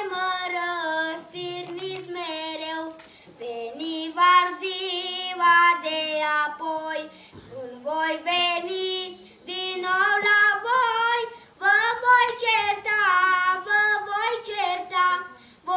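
A boy singing solo and unaccompanied, in phrases of a few seconds with short breaks between them and long held notes that waver slightly in pitch.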